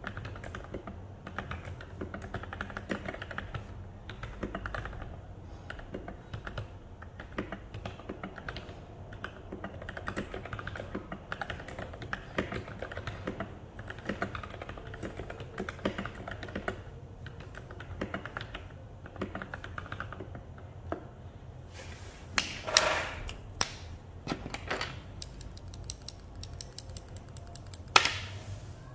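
Typing on an NJ68 mechanical keyboard with lubed Gateron Milky Yellow linear switches: a quick, steady run of keystrokes, with a louder, sharper cluster of key strikes about three-quarters of the way through and one hard clack near the end.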